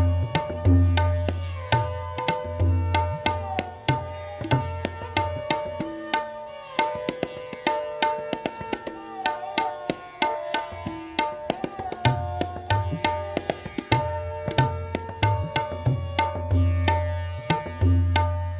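Tabla solo: rapid, crisp strokes on the treble drum over deep booming bass-drum strokes, which drop out for a few seconds midway. A sarangi plays a repeating lehra melody beneath it, its held notes gliding from one to the next.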